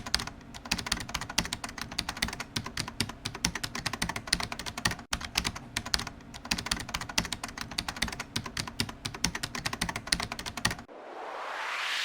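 Rapid, irregular clicking like fast typing on a keyboard, keeping on for about eleven seconds. It stops near the end, and a rising whoosh swells into the start of music.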